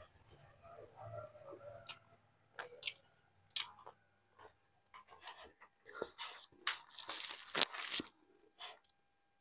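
Close-miked eating sounds: chewing at first, then a run of sharp clicks and crackles as pieces of naan are torn off by hand. The tearing is loudest a second or two before the end.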